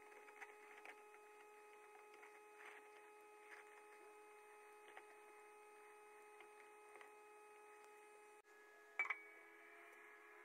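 Faint scratching of a brush scrubbing a small metal part in a tub of cleaning solution, over a steady faint hum. About nine seconds in, one sharp clink with a short ring.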